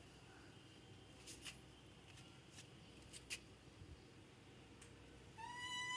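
Mostly near silence with a few faint clicks, then near the end a single high-pitched monkey call held on one slightly falling pitch for about half a second.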